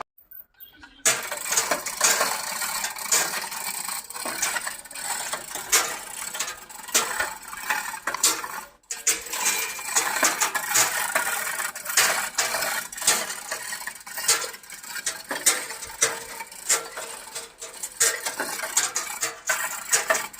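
Shaktiman round baler mechanism running, with a dense clatter of rapid clicks and rattles that starts about a second in and briefly drops out about nine seconds in.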